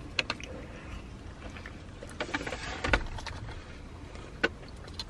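Low steady hum inside a car, with small mouth clicks and chewing from people eating chicken sandwiches, and a short paper-wrapper rustle about two seconds in.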